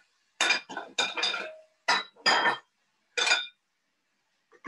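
Metal tongs clanking and scraping against a wok as stir-fried vegetables are turned, in about six short strokes with a metallic ring.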